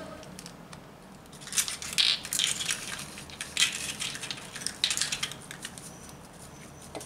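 Fingers crumbling something dry over a bowl of noodles and egg: short runs of crackling crunches, starting about a second and a half in and dying away after about four seconds.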